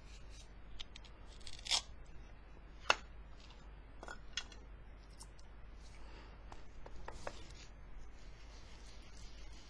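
Plastic ink pad cases clicking and knocking as they are picked up and set down, a few separate sharp clicks. From about six seconds in, a sponge ink-blending tool scrubs Distress ink across waxed paper with a soft, steady rubbing.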